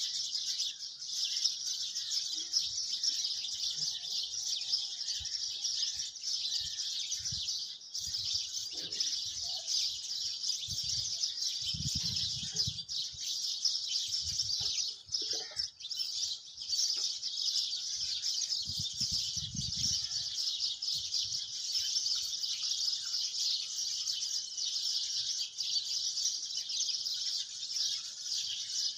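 Birds chirping in a dense, steady chorus, with a few soft low thumps about midway through.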